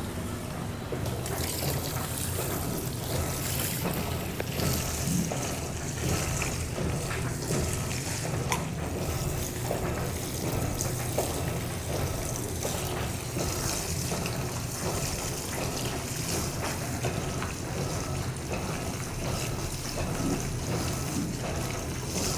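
Water running and splashing inside an Electrolux LPE16 washing machine, a steady flow over a low machine hum.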